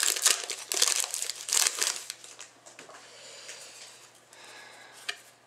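Foil trading-card pack wrapper crinkling and tearing as it is pulled open by hand, in a run of sharp crackles for about two seconds, then quieter rustling with a single tick near the end.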